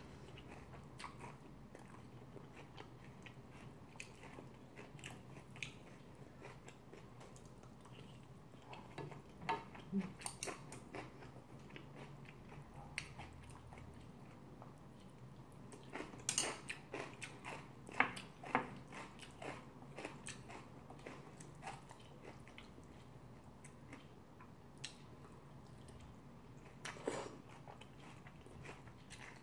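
Close-up chewing and mouth sounds of someone eating curry and rice. Scattered sharp clicks from a spoon and chopsticks against the dishes, a few louder ones around the middle and near the end.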